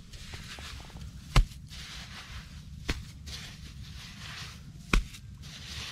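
Bare hands digging and scraping in damp mud and clay, with three sharp knocks or thuds spaced a second and a half to two seconds apart.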